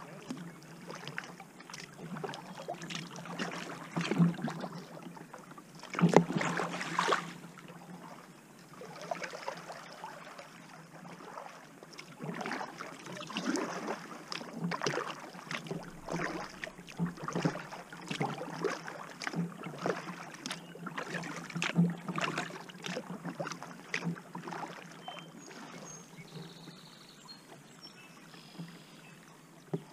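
Kayak paddle strokes in calm river water: repeated swishes and splashes roughly a second apart, the loudest about six seconds in, thinning out near the end as the kayak glides.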